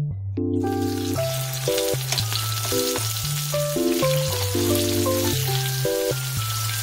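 Tofu slabs sizzling as they pan-fry in avocado oil. A steady hiss sets in about half a second in.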